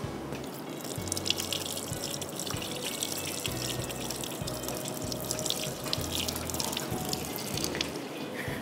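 Pakoras deep-frying in hot oil in a wok: a steady sizzle thick with fine crackling pops.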